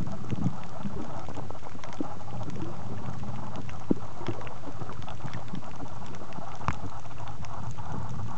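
Underwater sound picked up by a compact camera sealed in a soft plastic waterproof bag: a steady muffled rumble of moving water, peppered with many small crackling clicks, two of them sharper, about four seconds in and again near seven.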